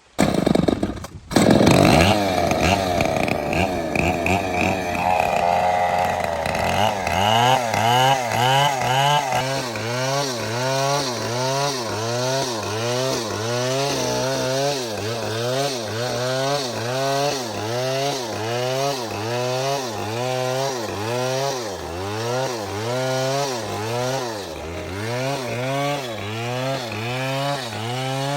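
Chainsaw running at speed, cutting into a palm trunk. It starts abruptly, and from about seven seconds in its pitch rises and falls in a regular rhythm about once a second as the saw loads and frees in the cut.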